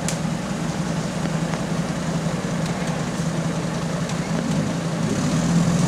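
Off-road 4x4 buggy's engine running at low revs as it crawls over rocks, a steady hum that grows louder near the end.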